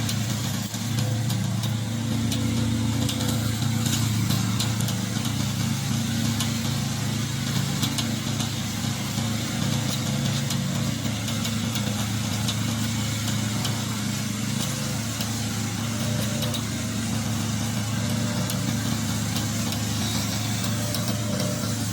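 Engine of a remote-control tracked slope mower running steadily at a constant speed.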